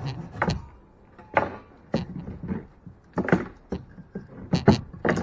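About seven irregular wooden knocks and thumps from heavy boat-frame timber being worked. The loudest comes about four and a half seconds in.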